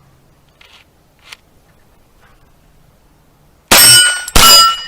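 Two shots from a .22 rimfire rifle in quick succession near the end, each followed by the ringing clang of a struck steel target plate.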